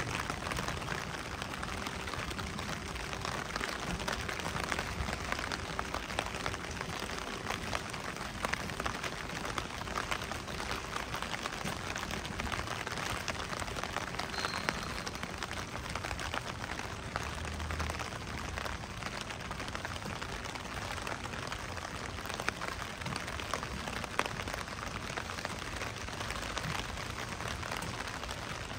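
Steady rain falling on the street: a dense, even hiss of drops with scattered sharper ticks.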